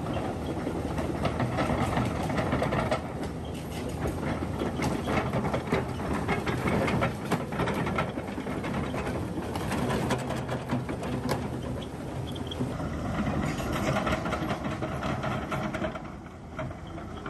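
Huina 1593 radio-controlled excavator's electric motors and gearing whirring steadily, with a continuous rattle of clicks and clatter. It eases off somewhat near the end.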